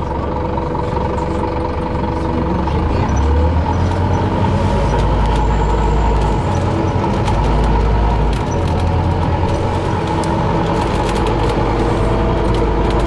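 Inside a moving city bus: steady engine and road rumble, the low drone swelling and easing as it drives, with a steady hum over it. Light rattling comes in during the last few seconds.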